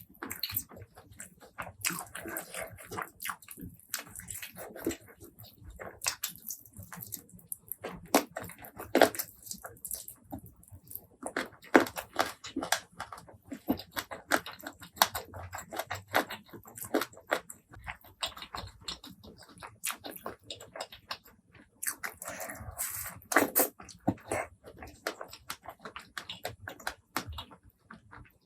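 Close-miked eating sounds: a person chewing food, with many irregular sharp mouth clicks that come thicker around a third of the way in and again near the end.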